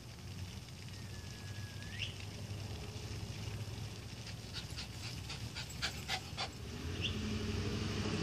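Steady low outdoor hum with a short rising squeak and a few faint clicks, then a car engine growing louder near the end as a vehicle approaches.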